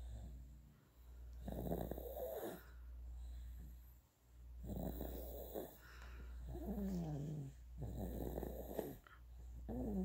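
A 9½-month-old baby snoring in his sleep, about five snoring breaths roughly one and a half to two seconds apart. Two of them, near the middle and at the end, carry a pitched note that slides downward.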